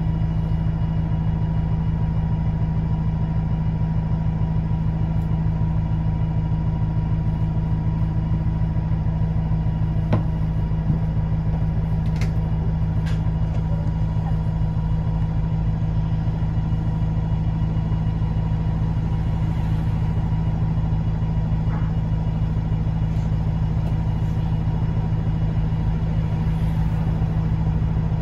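Bus engine running at a steady speed, heard from inside the passenger saloon as a constant low hum, with a few brief clicks and rattles about ten to thirteen seconds in.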